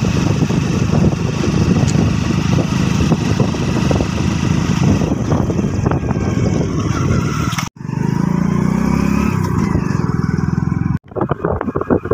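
Loud rumble of a vehicle engine mixed with wind on the microphone, broken by two abrupt cuts. In the middle stretch the engine's pitch rises and falls.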